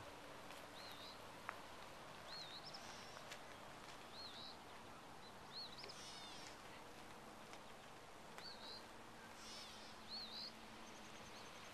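Faint bird calls: a short upward-hooked chirp repeated every second or two, with a harsher, buzzier call about halfway through and another later on.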